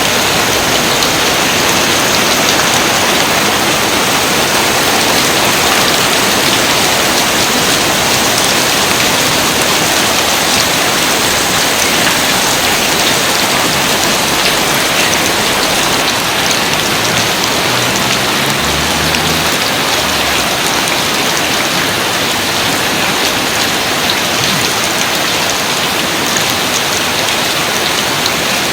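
Steady rain falling, an even dense hiss of many drops that keeps a constant level without a break.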